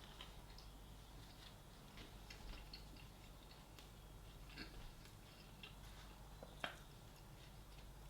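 Faint chewing of a soft sandwich: scattered small mouth clicks, with one sharper click about six and a half seconds in.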